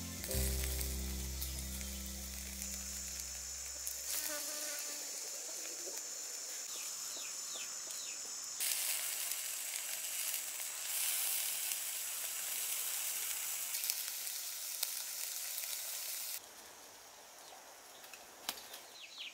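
Pork and vegetable skewers sizzling on a wire grill rack, with small crackles. The sizzling stops about three seconds before the end, leaving much quieter sound.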